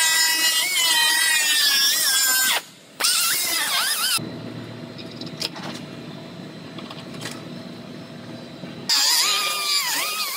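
A pneumatic cut-off wheel whines at high pitch as it cuts through two overlapping layers of quarter-panel sheet metal, its pitch sagging and wavering under load. After about four seconds it stops, leaving a quieter low hum with a few light clicks, and about nine seconds in it starts cutting again.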